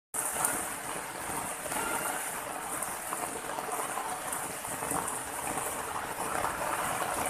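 Steady splashing hiss of water running over rocks, a small cascade into a pool.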